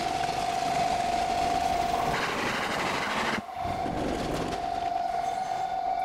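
Railway level-crossing warning alarm ringing as a steady tone. About two seconds in, the rushing noise of a passing train drowns it out, with an abrupt break halfway through, and the alarm comes back near the end.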